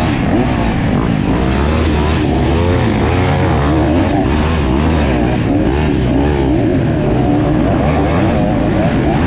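Dirt bike engine being ridden hard, its revs rising and falling over and over as the throttle is worked, about once or twice a second.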